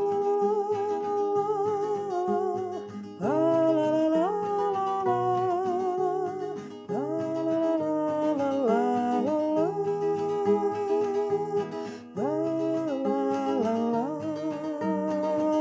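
Instrumental introduction of a song: a melody with notes that glide up and down, over an acoustic guitar accompaniment with a steady bass line.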